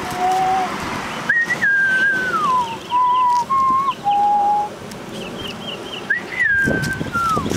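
A person whistling a tune: clear single notes stepping between held pitches, twice jumping to a high note that slides back down.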